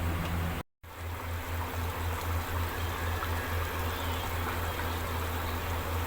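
Chicken curry bubbling and sizzling as it cooks in the pan, over a steady low hum; the sound drops out for a moment about half a second in.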